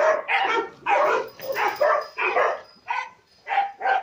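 Dog barking repeatedly in short, sharp barks, about two or three a second, with a brief lull about three seconds in.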